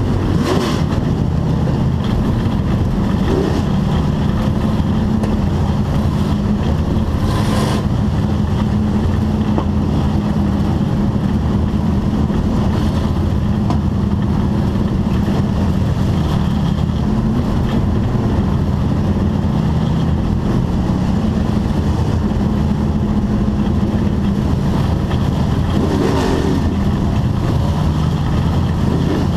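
Dirt-track race car's engine running at low, steady revs, heard from inside the cockpit as the car rolls slowly in a line of cars. There are brief louder swells about 8 and 26 seconds in.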